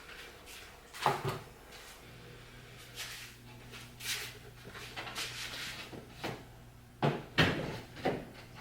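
Wooden parts of a fireplace mantel knocking and bumping as it is assembled: a few sharp knocks, one about a second in, another around four seconds, and a quick cluster near the end, over a faint steady hum.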